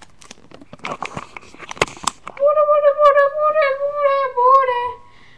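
A few knocks and rustles, then a high voice holding one long sung note for about two and a half seconds, wavering slightly before it stops.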